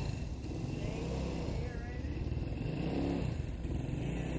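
Motorcycle engine running as the bike is ridden, its note rising and falling a couple of times with the throttle.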